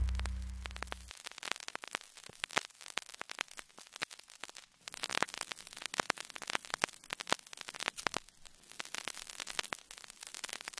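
The last low note of a heavy metal track dies away in the first second. Then faint static hiss with irregular crackles and pops, some clusters denser than others.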